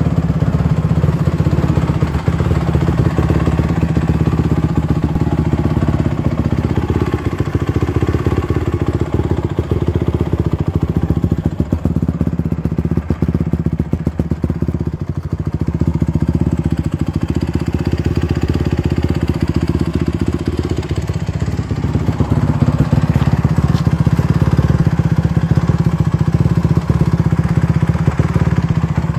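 2008 Honda CRF150R's 150 cc four-stroke single-cylinder engine idling steadily on the stand, with no revving.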